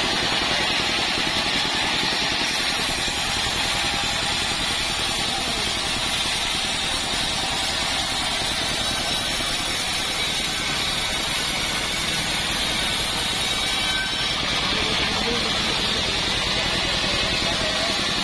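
Portable band sawmill running steadily, its engine-driven blade sawing lengthwise through a hard acacia log.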